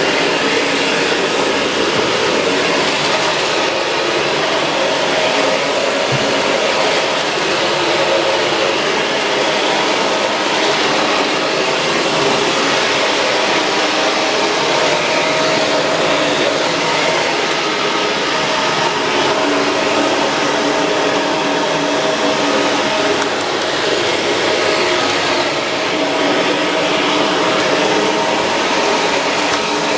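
Shark Rotator Pro Lift-Away NV500 vacuum cleaner running steadily, its motor giving a constant whine over the rush of suction.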